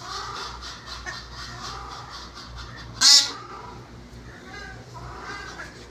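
Captive birds calling in an aviary, with one loud, harsh squawk about three seconds in.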